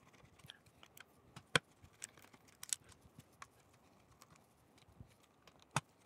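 Sparse small clicks and ticks of a precision screwdriver working the small screws out of a mini PC's plastic case, with the loudest clicks about a second and a half in and near the end.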